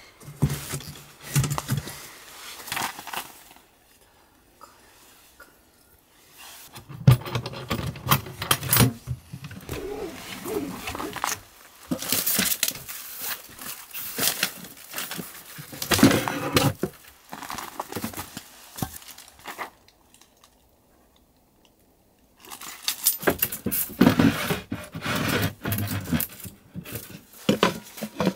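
Handling noise from unpacking a small metal wood stove and its sheet-metal panels from a wooden crate: irregular metallic clinks and knocks mixed with paper or wrapping crinkling, stopping twice for a couple of seconds.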